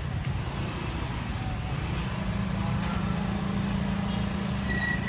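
Street traffic: a steady low rumble of engines, joined about two seconds in by one engine's steady hum.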